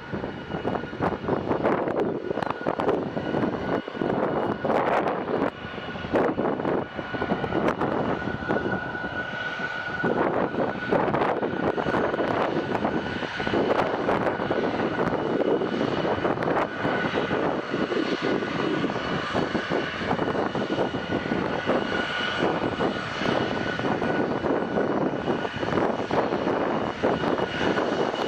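Airplane engines running steadily, a broad rush with a steady high whine over it, growing louder in the first second.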